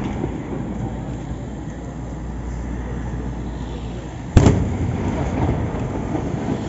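Aerial firework shell bursting with one sharp bang a little over four seconds in, trailing off in a rumbling echo, over a steady low background rumble.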